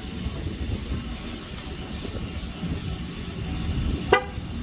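Low steady rumble, then about four seconds in a single short beep from the Chevy Volt, the car's signal that the tire pressure sensor at that wheel has been learned during the TPMS relearn.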